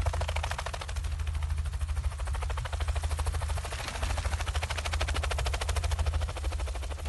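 A small helicopter's rotor beating with a fast, even chop over a steady low rumble.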